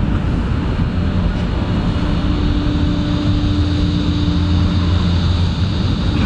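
A loud, steady, low mechanical drone, like a motor running nearby, with a constant hum tone that grows stronger about two seconds in.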